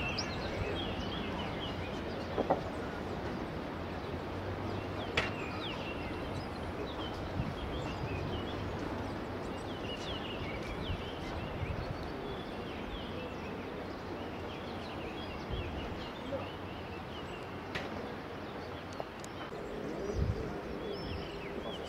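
Outdoor ambience of small birds chirping again and again over a steady background rush, with a few sharp clicks. A faint steady hum comes in near the end.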